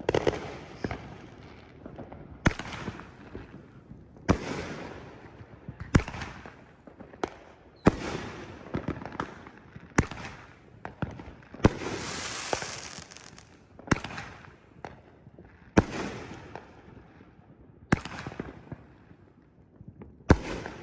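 Phantom Fireworks Bazinga Blast 7-shot aerial cake firing its shots one after another, a sharp bang about every two seconds, each followed by fading crackle. About halfway through there is a longer stretch of hissing crackle.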